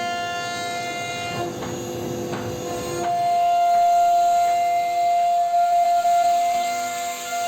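CNC router spindle whining steadily at a high pitch while carving wood, with a rougher cutting noise for a moment about a second and a half in; the whine grows louder about three seconds in.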